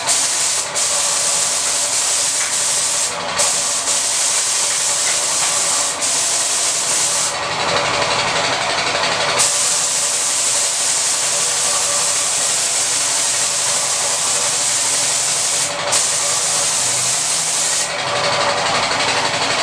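Gravity-feed paint spray gun hissing steadily as it sprays clear coat onto a motorcycle body panel. The hiss dips briefly between passes and thins out for a couple of seconds near the middle and again near the end.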